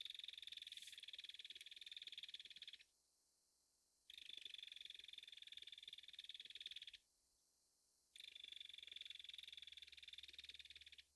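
Belted kingfisher giving its dry rattle call: three long rattles of about three seconds each, with a pause of about a second between them.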